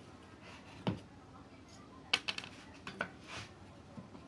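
A few light clicks and knocks of small hard objects being handled: one a little under a second in, a quick run of them about two seconds in, and a couple more around three seconds.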